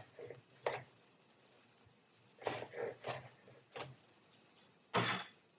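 Kitchen knife chopping king oyster mushroom tops on a bamboo cutting board: a few sharp knocks of the blade on the board at irregular intervals. Near the end comes a slightly longer stroke as the blade is swept flat across the board to gather the chopped pieces.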